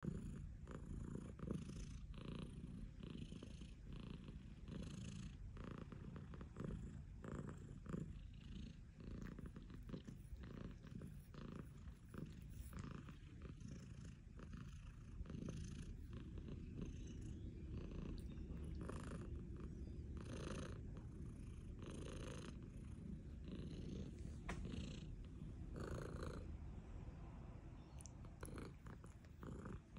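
Domestic tabby cat purring steadily, a continuous low rumble, while being scratched under the chin.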